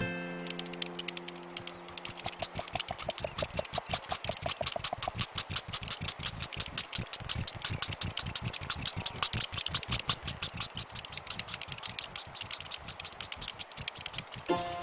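Rapid mechanical rattling from a small smoking engine-driven contraption, a fast train of sharp clicks many times a second. About three to five seconds in, a run of short tones climbs in pitch over the clatter.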